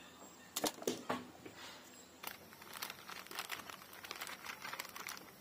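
Plastic popcorn packet crinkling as a cloth is pulled up out of it: a few sharp crackles within the first second or so, then dense rustling through the second half.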